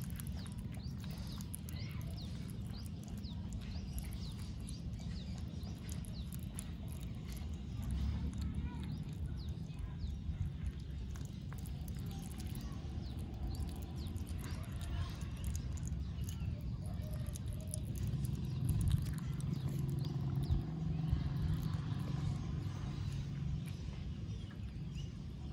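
Baby otter chewing and smacking on pieces of raw catfish, a rapid run of small wet clicks and crunches, over a low steady rumble.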